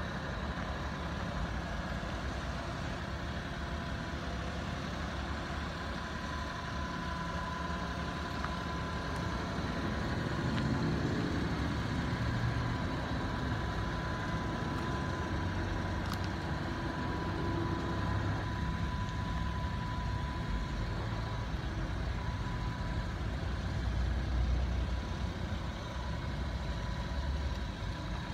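Mitsubishi Minicab kei truck's small three-cylinder engine idling steadily, with a thin steady whine above the idle.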